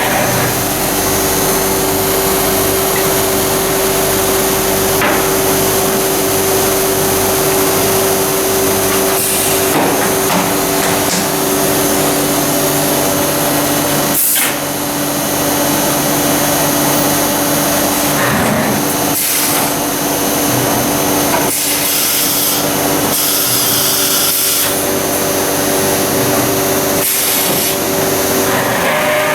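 Biesse Rover 322 CNC woodworking machining centre running: a loud, steady hum with an even rushing noise, broken now and then by short knocks.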